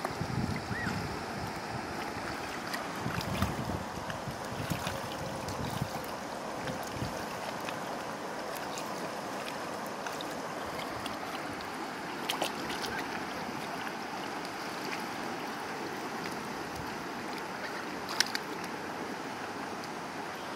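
Splashing and a steady rush of shallow water as young geese bathe and dip their heads. Wind gusts rumble on the microphone through the first several seconds, and a few sharp splashy ticks come later.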